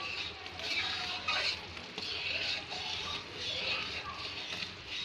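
Spatula stirring and scraping mawa (khoa) in sugar syrup in a kadhai, in repeated strokes about twice a second, while the mawa cooks and blends into the syrup.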